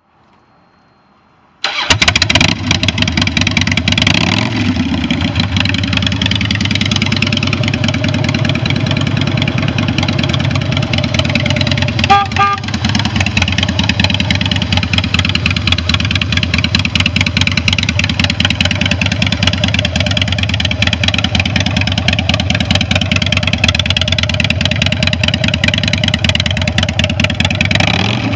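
A 2003 Harley-Davidson Softail Night Train's V-twin catches suddenly about two seconds in and blips up in revs, then idles steadily. A short beeping tone sounds near the middle, and the revs rise briefly near the end.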